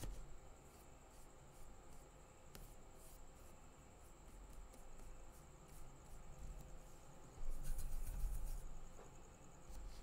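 Faint scratching and light taps of a paintbrush working watercolour paint, with a steady faint high whine underneath. About seven and a half seconds in there is a louder stretch of low rumble and clicks, lasting a second or two.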